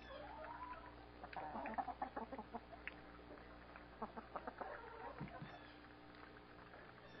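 Chickens clucking in short bunches: a drawn-out call right at the start, then two runs of quick clucks, over a faint steady hum.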